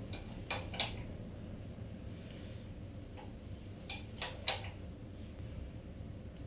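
A few sharp metal clicks from a wrench on the crankshaft pulley bolt as a Ford Pinto SOHC engine is turned over by hand with its spark plugs out: two clicks near the start and a quick run of three about four seconds in.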